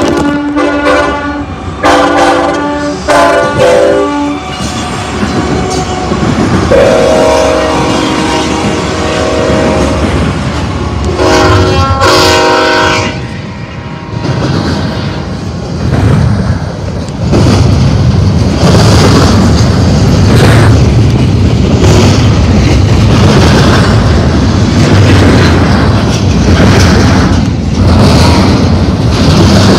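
Freight diesel locomotive's multi-note air horn sounding a series of blasts: three short ones, then a long one, then another short one. Then a double-stack intermodal train's well cars roll past close by with a steady rumble and wheel clatter on the rails.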